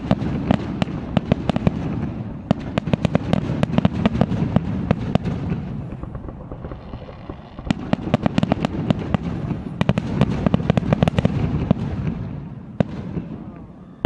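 Fireworks display going off in a rapid barrage of bangs and crackles over a continuous low rumble. The barrage eases briefly about halfway through, picks up again, then thins out near the end.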